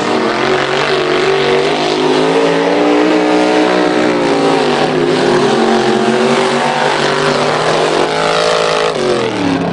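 Mud-racing truck engine running hard at high revs, its pitch held fairly steady and dipping briefly about halfway through and again near the end.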